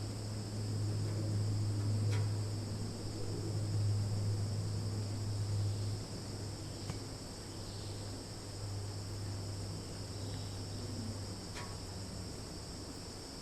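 Summer forest insect chorus of crickets and cicadas, a steady high trilling that never lets up, over a steady low hum. A couple of faint sharp clicks come about two seconds in and again near the end.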